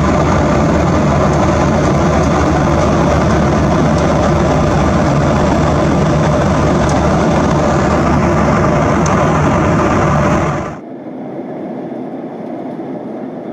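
Steady airliner cabin noise in cruise: the rush of airflow and jet engines, loud with a deep rumble. About eleven seconds in it cuts off abruptly to a quieter, thinner cabin hiss without the rumble.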